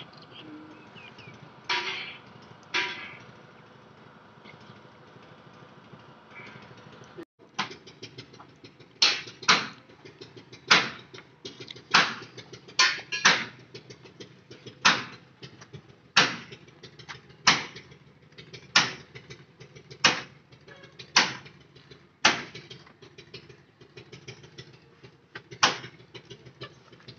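Sharp knocks, a few scattered ones at first, then a steady run about one every second and a half from about seven seconds in, over a faint steady background.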